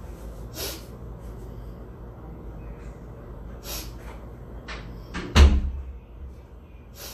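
A single heavy thump about five and a half seconds in, over a low steady hum, with a few short sniffs before it.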